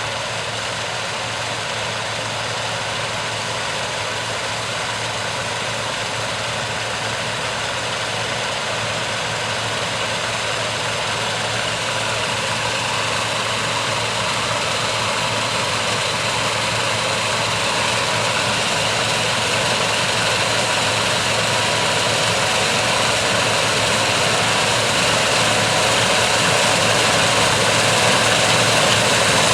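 Gleaner S97 combine running in a soybean field, its 9.8-litre AGCO Power diesel engine and harvesting machinery making a steady dense hum that grows slowly and evenly louder.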